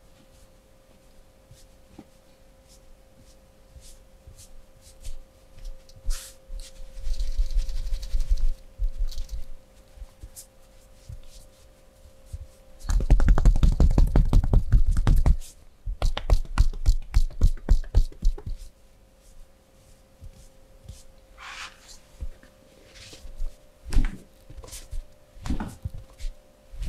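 Hands working in a massage: scattered rubbing and scraping, then a dense burst of rapid slaps and taps about halfway through, followed by a run of regular taps at about six a second. A steady faint hum runs underneath.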